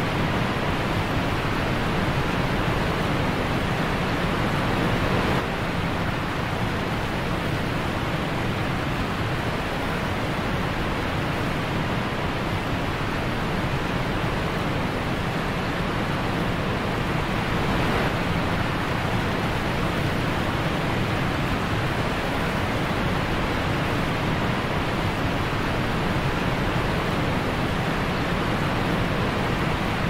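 Steady rush of a waterfall: an even noise that does not change, with a small drop in level about five seconds in.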